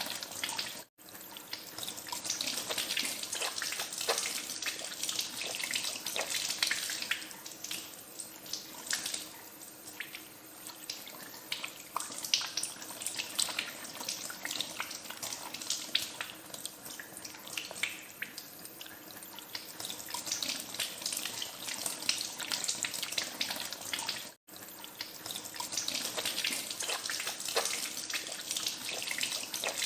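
Tap water running into a sink while hands are washed under it, with irregular splashing throughout. The sound cuts out for an instant twice, about a second in and again about three-quarters of the way through.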